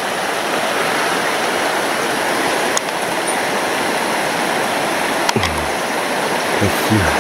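Steady rush of flowing water, with two short low sliding sounds near the end.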